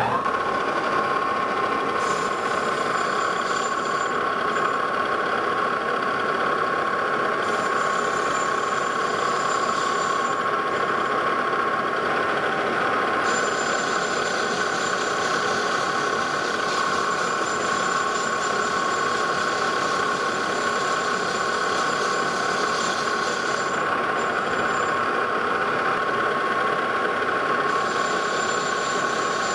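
Metal lathe running with a steady whine while a carbide turning tool, fed by hand, cuts a 30-degree bevel on a turned metal ring. The whine rises to its pitch right at the start as the lathe comes up to speed.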